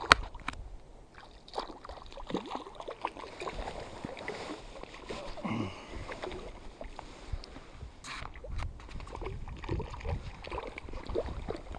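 A small hooked brook trout splashing at the surface near the bank, with rustling and short handling knocks from clothing and fishing gear close to the microphone. A sharp click comes right at the start.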